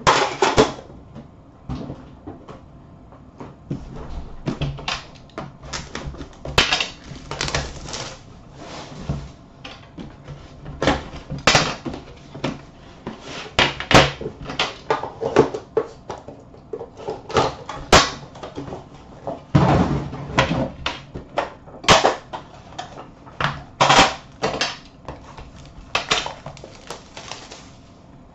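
An Upper Deck The Cup hockey card tin box and the pack inside it being handled and opened on a glass counter: irregular clicks, taps and knocks with short bursts of rustling, the sharper knocks coming every couple of seconds.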